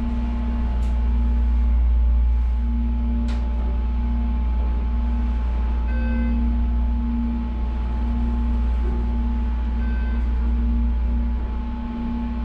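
Elevator car travelling: a steady low rumble with a motor hum. A short electronic chime sounds about six seconds in, and a fainter one near ten seconds.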